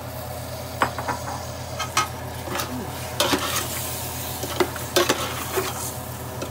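Long metal spoon stirring ham hocks and sautéed vegetables in an aluminium stockpot, with irregular clinks and scrapes against the pot over sizzling in the hot roux. A steady low hum sits underneath.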